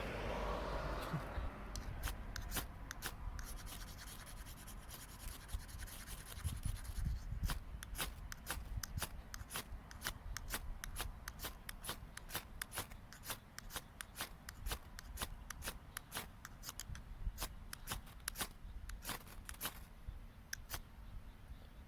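Wood campfire crackling, with many irregular sharp pops and snaps. A brief rustling noise in the first second or so.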